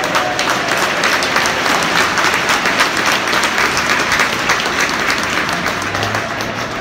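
Football stadium crowd clapping and applauding, a dense patter of many hands that eases off near the end.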